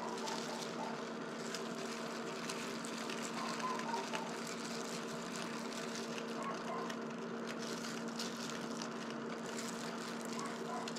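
Induction cooktop running while it heats a pan of oil: a steady electrical hum with a few held tones and fan noise. Soft rustles from plastic-gloved hands coating fish pieces in starch come and go.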